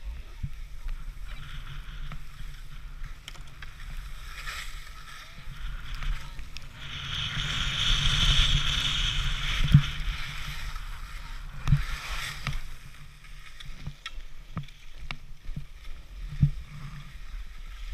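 Skis sliding and scraping over packed snow during a downhill run, with wind rumbling on the camera's microphone. The scraping grows loudest for a few seconds in the middle, and there are a few sharp knocks.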